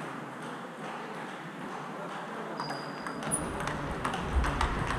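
Table tennis balls clicking off bats and tables during play. A rally at the near table sets in about three seconds in, and from there the hits come louder and more often.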